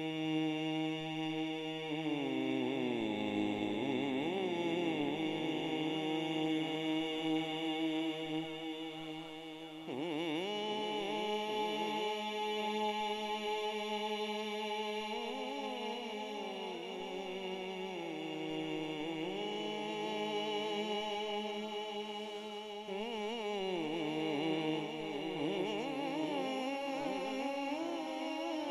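A man singing the long wordless opening of a Punjabi naat into a microphone over a PA, without instruments: long held notes with wavering, sliding ornaments, shifting pitch every few seconds.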